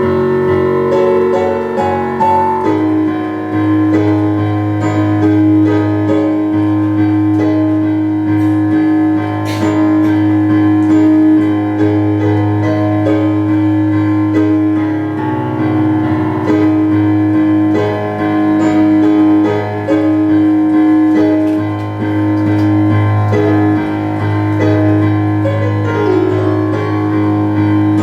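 Keyboard playing an instrumental interlude without singing: held low bass notes and a sustained middle note under changing chords.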